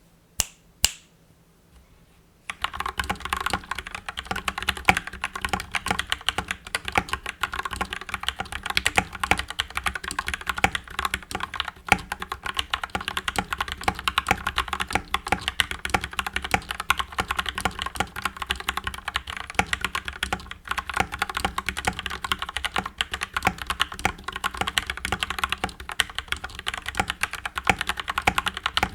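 Mechanical keyboard being typed on quickly and continuously, a dense stream of key clacks. A few single key presses come first, and the steady fast typing starts about two and a half seconds in.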